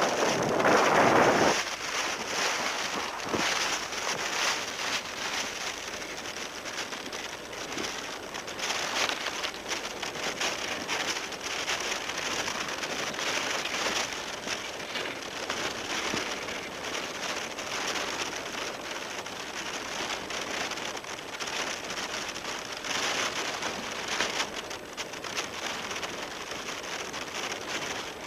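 A steady, uneven hiss like rain falling, with a louder surge of noise in the first second and a half.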